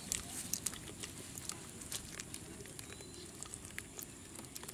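Freshly caught small fish flipping in a plastic bucket of shallow water: scattered, irregular light wet ticks and pats, over a low steady rumble.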